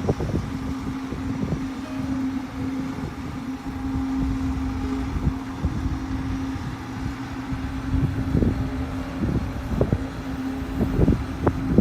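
A machine running with a steady hum and low rumble, with scattered short knocks and buffeting.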